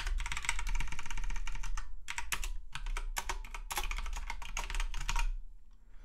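Typing on a computer keyboard: a fast run of key clicks for about two seconds, then several shorter bursts of keystrokes, stopping shortly before the end.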